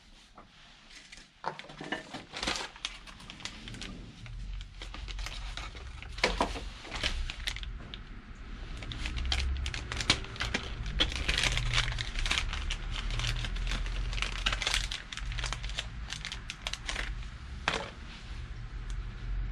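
A small plastic-and-foil package crinkling and crackling as it is handled and torn open by hand, a dense run of irregular sharp crackles through the middle. A low steady hum runs underneath from a few seconds in.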